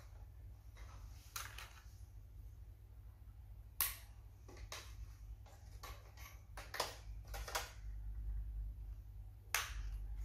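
Scattered sharp clicks and knocks of computer hardware being handled, typical of a SATA cable being fitted to an SSD inside a PC case, irregular and several seconds apart, over a low steady hum.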